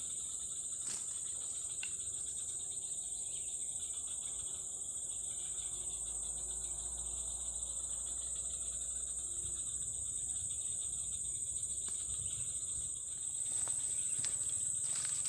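A steady, high-pitched insect chorus keeps up without a break, with a few faint clicks.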